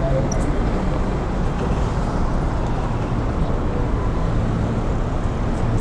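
Honda Click 125 scooter on the move: a steady, even rush of engine, road and wind noise.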